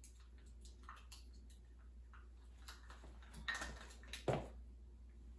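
A spoon stirring mustard mixed with horseradish in a small glass bowl, giving faint scattered ticks and scrapes against the glass. Two louder taps come about three and a half and four and a quarter seconds in.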